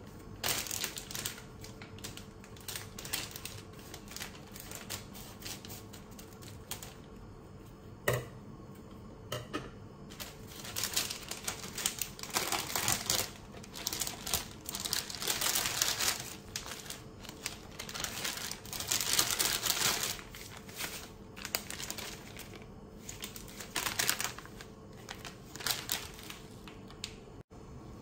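Water heating in an electric cooking pot with a glass lid, crackling and ticking in swelling waves as it nears the boil, over a faint steady hum. A plastic noodle packet crinkles and is snipped with scissors near the start.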